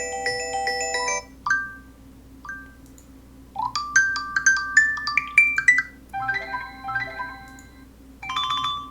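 Google Pixel built-in ringtones previewed one after another: short melodies of clear electronic notes, each cut off after a second or two as the next ringtone is selected. One stops about a second in, two single notes follow, then a run of rising notes, another short tune, and a new one starting near the end.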